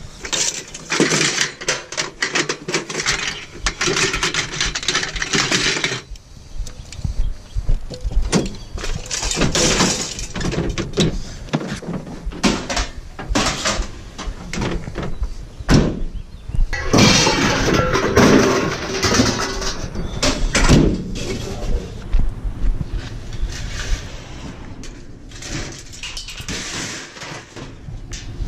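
Scrap and junk being handled: repeated knocks, clatter and stretches of scraping and rustling as items are dragged about and moved.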